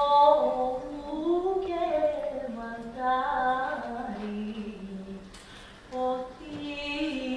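A woman singing solo without accompaniment, a slow song in long held notes that bend and waver, sung in short phrases with brief pauses for breath.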